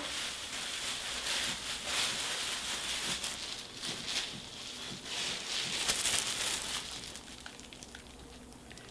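Gloved hands working wet hair dye into locs, an irregular soft crackling rustle that grows quieter near the end.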